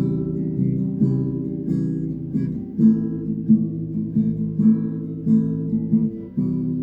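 Guitar strummed in a steady rhythm, about two chords a second, playing a song's instrumental intro; the chord changes about three seconds in and again near the end.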